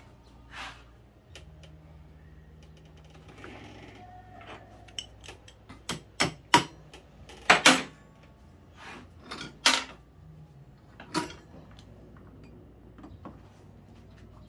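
Scattered sharp metallic clanks and knocks of hand tools and front-axle hardware as a scooter's front wheel is worked loose, the loudest coming in a cluster around the middle, over a faint low hum.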